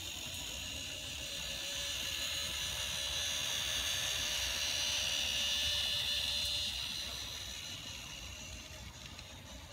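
N scale model freight train running past on the layout: a steady high whir of its wheels and motor on the track. It swells to its loudest around the middle and fades away over the last few seconds.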